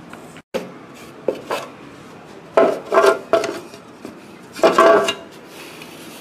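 Plastic food processor parts being handled and fitted onto the bowl: a few light clicks, then two louder bursts of plastic clatter, about two and a half and four and a half seconds in.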